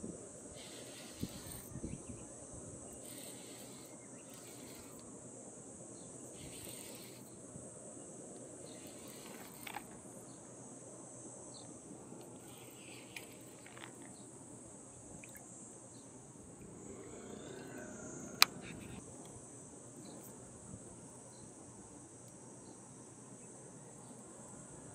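Insects chirring steadily in a high, shrill band, with a single sharp click about two-thirds of the way through.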